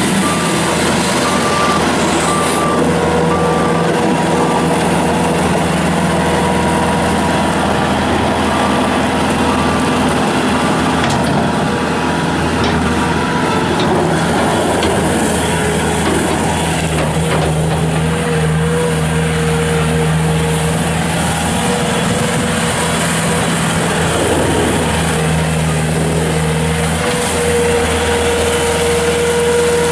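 Bobcat S300 skid steer loader running with its Kubota diesel engine, the engine note shifting as it is worked. Its backup alarm beeps for the first few seconds and starts again at the end.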